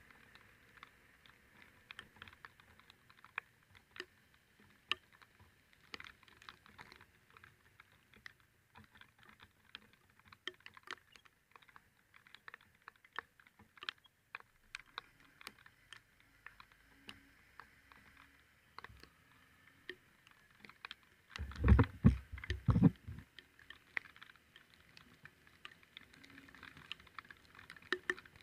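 Raindrops ticking irregularly on the helmet or camera, many small sharp ticks. A loud low rumble lasts about a second and a half near the end.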